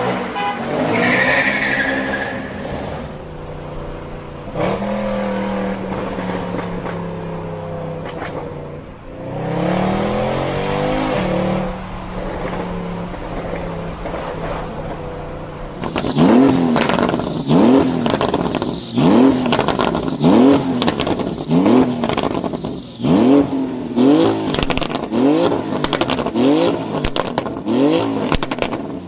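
Performance car engine running and revving. About halfway through it breaks into a run of quick throttle blips, roughly one a second, each rising in pitch, with exhaust pops and bangs between them.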